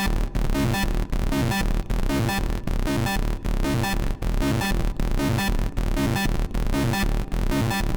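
Hard techno loop playing back: distorted schranz kicks with a Serum 2 sawtooth lead riff over them, the lead squeezed by a fast single-band compressor. Dense and loud, with a driving rhythm and short regular gaps.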